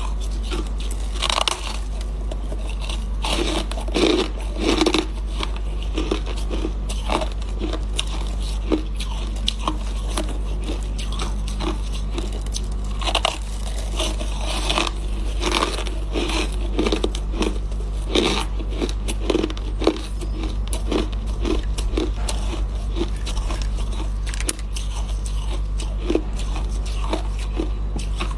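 Frost-covered chunks of coloured ice being bitten and chewed, a run of irregular crunches over a steady low hum.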